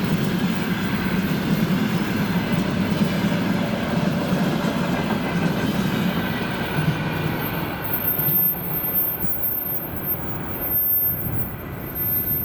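Freight train rolling past, its wagon wheels rumbling and clattering over the rails; the sound dies away over the last few seconds.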